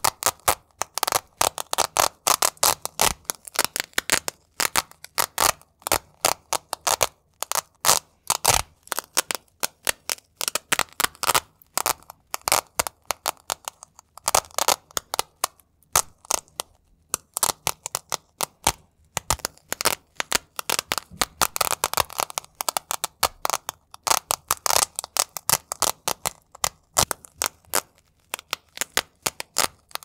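Velcro hook-and-loop strips on a black fabric wallet being peeled apart and pressed together over and over, close to the microphone. It makes dense runs of short, crunchy crackles, several a second, with a brief pause about halfway.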